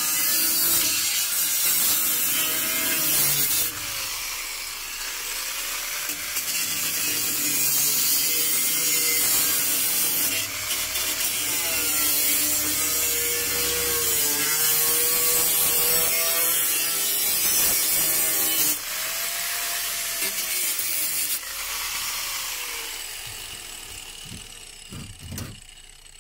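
Angle grinder with a cutting disc cutting through a car's sheet-steel rear back panel, its pitch rising and falling as the disc loads up in the cut. It drops off briefly a few times and fades away near the end, with a few short knocks as the cut-out panel comes free.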